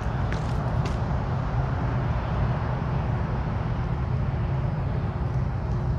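Steady low rumble of a vehicle engine running, with a faint steady hum over it and a couple of light clicks in the first second.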